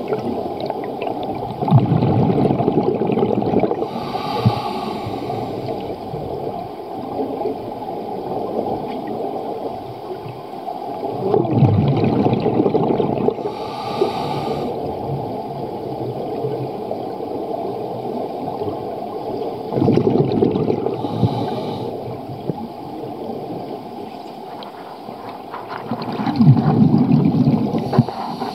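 Scuba diver breathing through a regulator, heard underwater: four rumbling gushes of exhaled bubbles about every eight seconds, with a short hiss of inhaling through the regulator between them.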